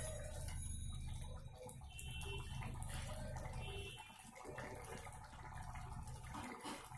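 Thick urad dal with spinach bubbling and simmering in an aluminium karai, stirred with a wooden spatula at first. A low steady rumble lies under it for the first four seconds, then drops away.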